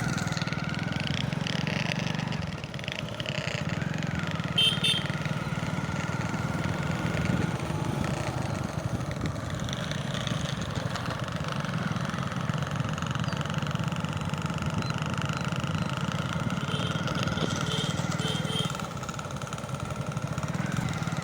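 Motorcycle engine running with a toy pipi whistle fitted in its exhaust silencer, giving a steady high whistle over the low engine rumble. A few short high chirps come about a quarter of the way in and again near the end.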